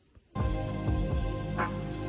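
Background music starts suddenly a moment in, after near silence, with held chords over a steady bass and a few sharp plucked notes.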